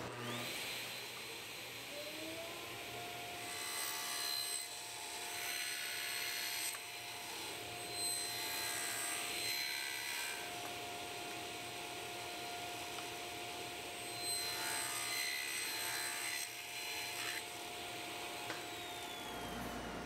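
Table saw motor spinning up, its whine rising in pitch over the first couple of seconds and then holding steady. Several louder stretches follow as the blade cuts a hardwood strip held in a miter sled, and the motor winds down near the end.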